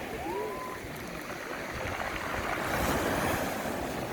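Sea waves breaking and washing up a round-pebble beach, the surf swelling louder about three seconds in.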